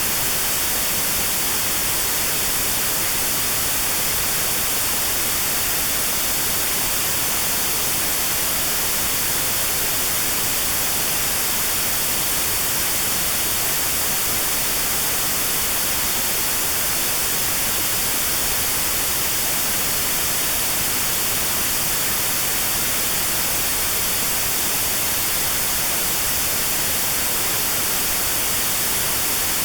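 Steady synthetic white noise with a narrow band around 4 kHz removed: notched sound therapy aimed at 4 kHz tinnitus. An even, unchanging hiss, brightest in the treble.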